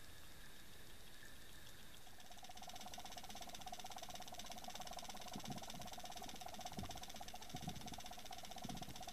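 Mechanical whine with very fast ticking, heard underwater, starting about two seconds in. A few dull low thumps come in the second half.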